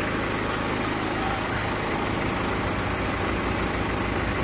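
Boat lift's engine idling steadily with a low rumble.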